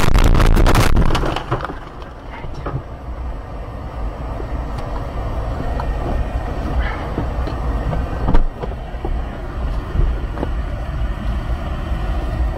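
A car ploughing off the road into bushes and trees, with loud crashing and scraping of branches against the body, stopping about a second and a half in. After that a low steady rumble with scattered knocks and clicks inside the car's cabin, one sharper knock about eight seconds in.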